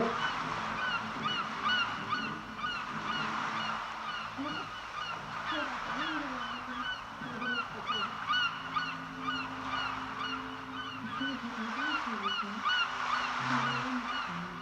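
Many birds chirping densely and steadily, with lower wavering calls now and then.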